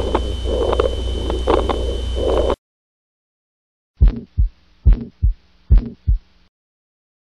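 Auscultation recordings played back: first a noisy one with a steady hum and repeating swells and clicks, which cuts off about two and a half seconds in; after a second of silence, clean heart sounds, three lub-dub beats at a little over one a second.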